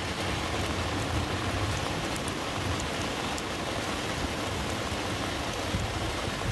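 Maple sap at a rolling boil in the wide, flat pan of a homemade evaporator: a steady rushing, bubbling hiss with a few faint ticks.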